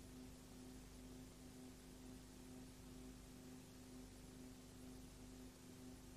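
Near silence: a faint steady hum over an even hiss.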